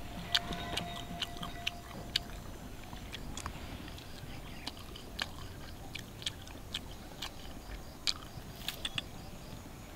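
A person chewing and biting into iron-plate grilled chicken wings, with many irregular sharp clicks of eating.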